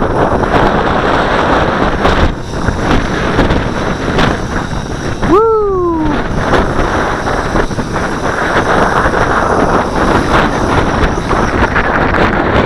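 Strong wind of about 15 knots blowing across the microphone, a loud steady rush. About five seconds in, one short call that rises and then falls in pitch sounds over it.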